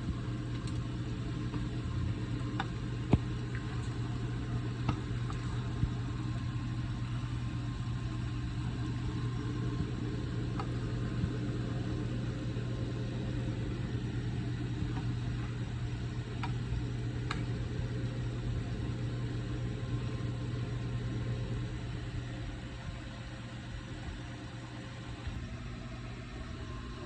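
A kitchen appliance running with a steady electric hum and fan noise, with a few faint clicks along the way; the hum starts abruptly and eases slightly near the end.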